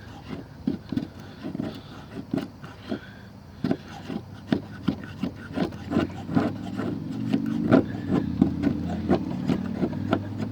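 The dull straight blade of a cheap multitool scraping and cutting into hardwood in short repeated strokes, about two or three a second. The blade is not sharp and barely bites. A steady low engine hum joins about six seconds in.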